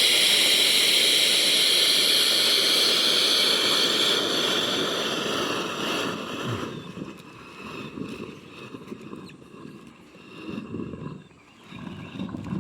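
Loud hiss of air and water rushing out of an opened outlet on a solar-pumped water supply pipe as the line discharges. It fades after about four seconds and cuts away at about seven seconds in, leaving faint, uneven sounds.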